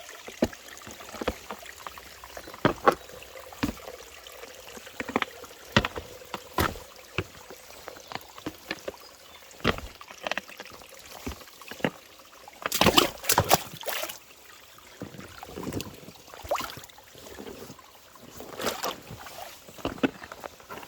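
Spiked boots walking over stones: sharp, irregular clicks and scrapes of metal spikes on rock, about one or two steps a second, with a louder, denser clatter a little past halfway.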